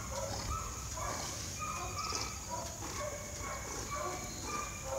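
Scattered short, pitched animal calls over a low wind rumble on the microphone.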